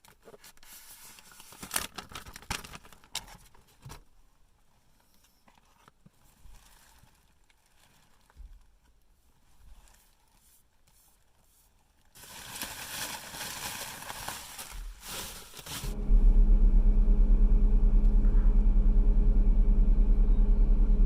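Plastic wrap and a cardboard phone box being handled and opened, crinkling and scraping, with a rustling stretch near the middle. About three quarters of the way in, a loud steady low hum starts.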